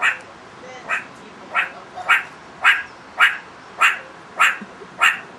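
Meerkat giving its barking alarm call: a steady run of about nine short, sharp barks, roughly two a second.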